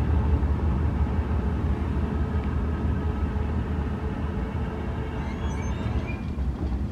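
Low, steady vehicle rumble that slowly fades.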